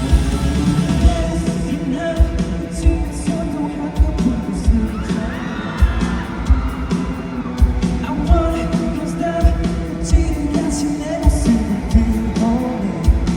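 Live rock band playing: drum kit with steady kick-drum beats under electric guitar and bass, with a voice singing over it partway through.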